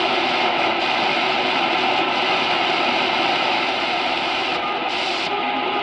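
Tecsun H-501X shortwave receiver in AM mode giving a steady rush of hiss and band noise as it is tuned up through the 31-metre band between stations.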